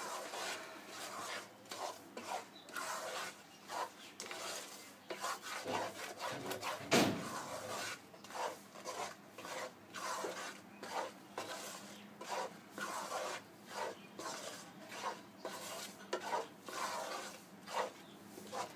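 A utensil scraping round a cooking pan in repeated strokes, about one a second, as raw mango pieces and jaggery are stirred continuously. There is one louder scrape about seven seconds in.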